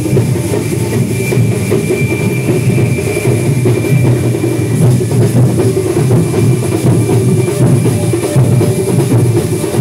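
Loud, continuous drumming from a festival percussion ensemble, dense and unbroken, with a thin steady high tone held above it.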